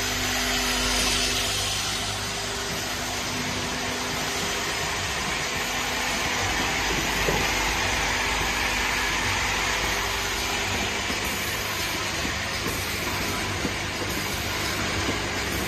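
Steady mechanical hum and hiss of an automatic plastic vial filling and capping line running, with its vibratory bowl feeders for caps and plastic parts, and a few faint ticks of parts.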